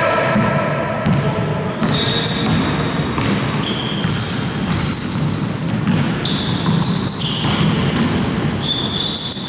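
Basketball game play on an indoor court: the ball bouncing, with many short high squeaks of sneakers on the floor.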